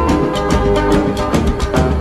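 Background music with a steady beat, bass and sustained instrumental notes.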